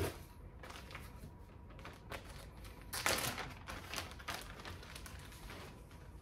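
Plastic zip-lock bag crinkling and rustling as it is pulled out of a cardboard box and handled, loudest about three seconds in.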